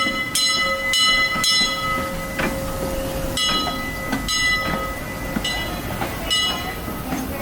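Disneyland Railroad steam locomotive's bell ringing. The strokes come about twice a second at first, pause briefly, then ring out more slowly, each one leaving a ringing tone. A low rumble and hiss from the train run beneath.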